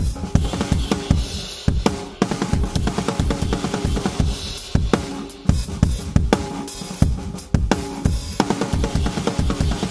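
Acrylic drum kit played in a busy, continuous pattern of bass drum, snare and cymbal strokes, captured through the Yamaha EAD10's single microphone unit mounted on the bass drum.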